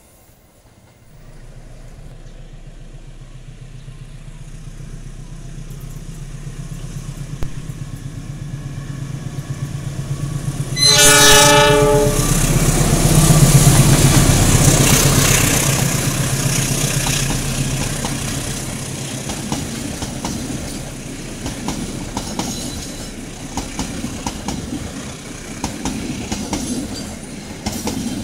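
KAI CC206 diesel-electric locomotive approaching with a low engine drone that grows steadily louder. It sounds its horn once, for about a second, just before it passes. The passenger carriages then follow with a clickety-clack of wheels over the rail joints, slowly fading.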